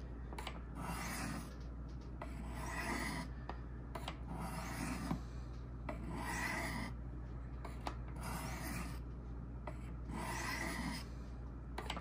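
Knife blade drawn heel to tip across the flat faces of fine white ceramic sharpening rods, steel rasping on ceramic in a stroke roughly every two seconds, back and forth between the rods. This is light final honing of an edge that is already factory-sharp.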